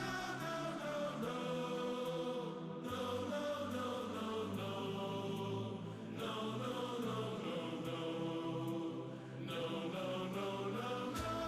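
Background music: a song's held, layered vocal chords with no clear words, a low bass coming in near the end.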